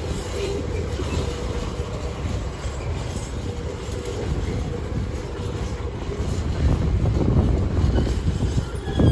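Freight train of container flat wagons, mostly empty, rolling past on the track: a steady rumble of wheels on rails, growing louder in the last couple of seconds.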